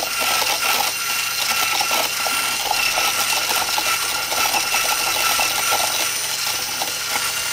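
Electric hand mixer with a wire whisk attachment running steadily at a constant high whine, the whisk clicking and rattling against the plastic cup as it beats thick mayonnaise.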